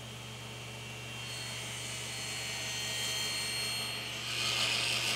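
Powermatic 10-inch cabinet table saw running with a steady motor hum while a Douglas-fir 2x4 is fed into the blade. It cuts a narrow kerf along the board, the first of two cuts for a rabbet. The cutting noise builds from about a second in and is loudest over the last second.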